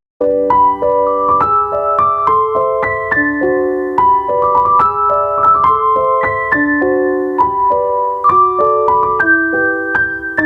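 Background music: a gentle piano melody of quick single notes, restarting after a brief gap at the start.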